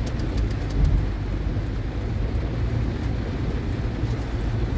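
Heavy rain on a car together with a steady low rumble from the car as it drives slowly through floodwater in a downpour.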